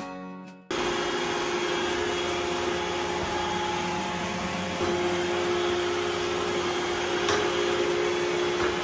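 Robot vacuum cleaner running: a steady motor whir with a hissing noise, starting abruptly just after some background music fades out.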